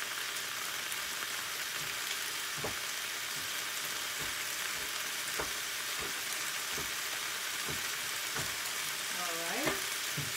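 Penne, spinach and chicken sizzling steadily in a frying pan, with a knife knocking dully on a cutting board about once a second as more chicken is chopped; the loudest knock comes near the end.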